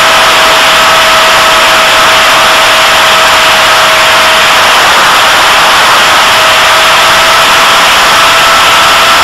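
EFX Racer FPV model plane in flight, heard from its onboard camera: the motor and propeller hold a steady high-pitched hum under heavy wind rush on the microphone, the pitch dipping slightly at the very start.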